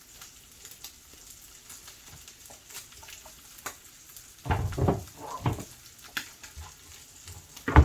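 Ground beef frying in a pan: a faint steady sizzle with scattered small crackles, and a few louder knocks of handling about halfway through.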